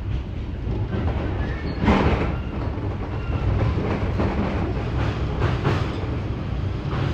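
Electric commuter train running, heard from inside the passenger car: a steady low rumble of wheels on the track, with a clack over the rail joints every second or so, the loudest about two seconds in.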